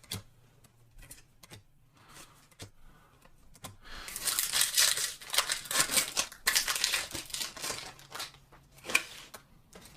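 A foil Pokémon booster pack wrapper being torn open and crinkled, a dense crackling rustle starting about four seconds in and lasting some three seconds, with light clicks of cards and wrapper being handled before and after.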